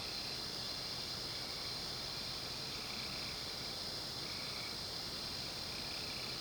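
Night insect chorus: a steady high-pitched trilling, with a lower buzzing call repeating about every second and a half.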